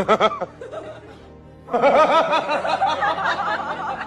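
High-pitched, rapid giggling laughter from a human voice, starting a little under two seconds in, over steady background music. There is a short voiced sound at the very start.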